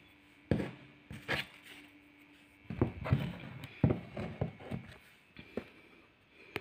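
Handling noise from a small cardboard smartwatch box being picked up and turned in the hand: a scattering of short, soft knocks and clicks, bunched together about three and four seconds in.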